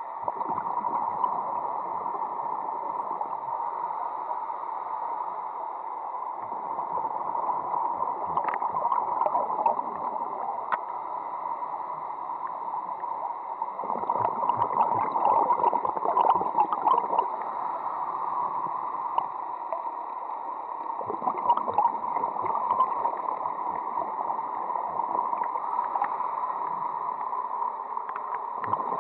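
Underwater sound heard through a camera housing: a steady watery hiss, with louder bursts of bubbling and crackling about every seven seconds, each lasting a few seconds.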